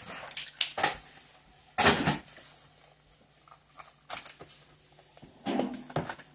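Wrapper of a small blind-bag toy packet crinkling and tearing as it is pulled open by hand, in irregular rustles with a louder burst about two seconds in.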